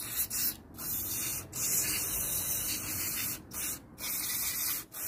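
Aerosol cleaner spray can hissing in a series of spurts with brief breaks between them, being sprayed into a lawnmower carburettor's openings to flush out brown sludge.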